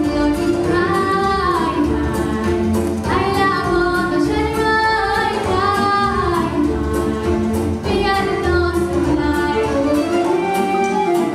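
A young girl singing a Romanian folk song in phrases, over a steady instrumental accompaniment.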